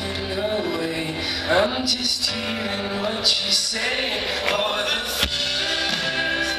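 A band playing live, with singing over the instruments.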